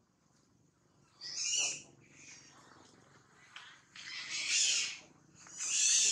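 High-pitched, shrill cries from a macaque, three of them: a short one about a second in, a longer one around four seconds, and another near the end.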